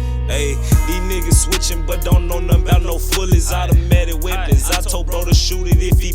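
Hip hop track playing: a beat with a deep sustained bass and fast hi-hat ticks, with short vocal or bending melodic phrases over it about every half second.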